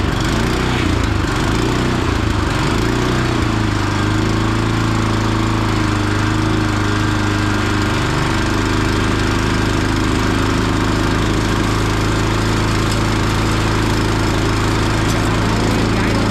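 Bear Cat wood chipper's small gasoline engine running just after being pull-started, its speed wavering for the first few seconds before settling into a steady run.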